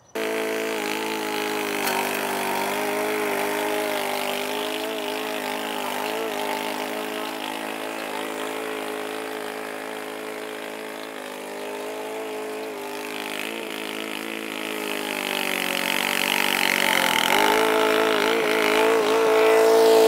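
Gas engine of a remote-control tracked slope mower running steadily while it cuts tall, thick grass with the deck lowered. Near the end the engine briefly drops in pitch, bogging down under the load without stalling, and it gets louder as the mower comes close.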